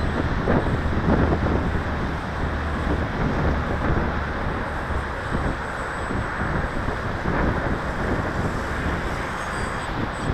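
Wind blowing across the microphone: a dense rumble that swells and eases in gusts.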